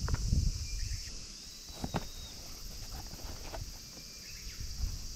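Rustling and a few sharp clicks as a short peg hammer is threaded onto a belt beside a canvas belt pouch. A steady high hiss of insects runs underneath.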